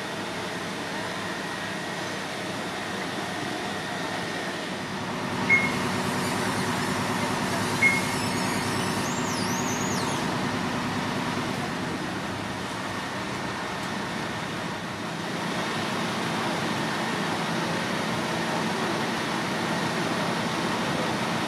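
Steady engine drone of fire appliances running at the scene, with two short high beeps about five seconds in and again two seconds later.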